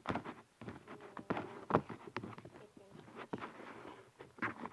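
Homemade slime being stirred and squeezed by hand: irregular sticky clicks and squelches.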